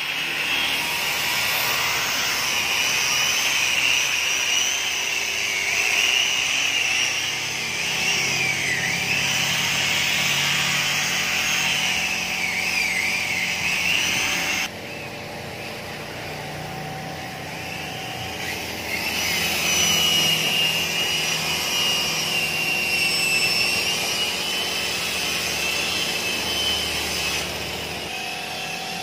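Electric car polisher running with a high whine that wavers in pitch. The sound drops abruptly about halfway through and comes back up a few seconds later.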